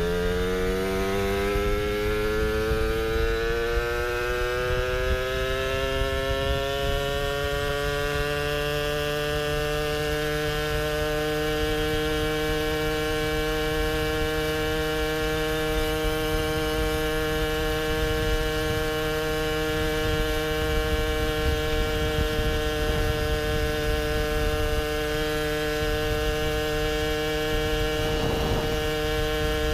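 Two-stroke engine of a Puch Maxi Luxe moped with a chambered expansion pipe, its pitch rising over the first ten seconds or so as it accelerates, then holding steady at cruising speed. A low wind rumble runs underneath.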